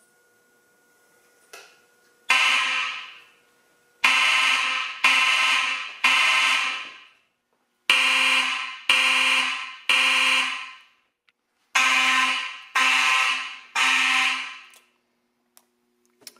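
Simplex fire alarm horns (2901-9838 and 2901-9845) sounding a loud evacuation signal in the temporal-three pattern: three blasts about a second apart, a short pause, then the next three. One lone blast is followed by three such groups, and then the horns stop.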